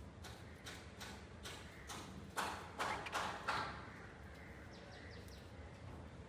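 Pet budgies making a string of short, harsh chirps. The chirps bunch together and are loudest from about two and a half to three and a half seconds in, over a low steady hum.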